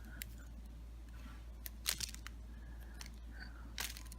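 A few faint clicks and small crunches from handling the black inner material of a cut-open zinc-carbon battery, the loudest about two seconds in, over a steady low hum.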